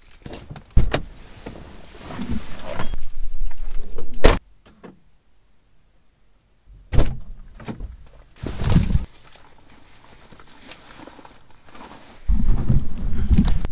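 Car door and handling noises heard from inside a parked car's cabin: several sharp knocks and thumps with rustling and clinking between, and a stretch of clattering near the end.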